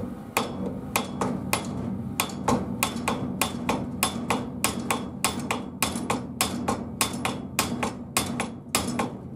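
Hammer tapping a wooden block set on the seized piston of a Piaggio Ciao M1M two-stroke moped engine, a steady run of light blows at about three a second, trying to drive the stuck piston down the cylinder.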